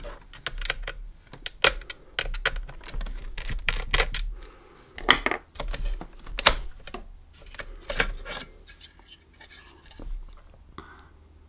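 Hands working a 2.5-inch Kingston SSD in its metal bracket out of a laptop's drive bay: a run of clicks, taps and scrapes of plastic and metal as it is slid out and lifted free, thinning out over the last few seconds.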